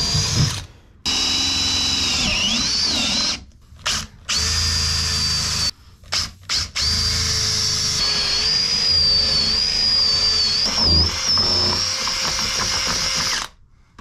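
Cordless drill boring through a hardwood beam, drilling a row of holes to join into a wire slot. The motor whine stops and restarts several times with quick blips of the trigger, dips in pitch as the bit loads up a little after two seconds in, then runs steadily through the second half and stops just before the end.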